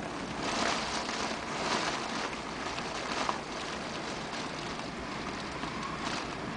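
Strong typhoon wind gusting in waves, a rushing noise that swells and eases every second or so.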